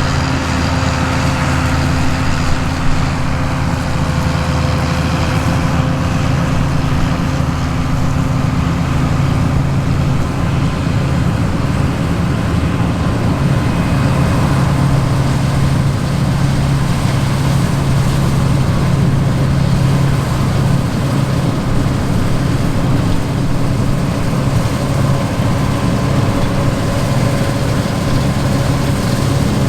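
Heavy diesel engines of John Deere harvest machinery running steadily under load, a loud, even drone with a constant low hum.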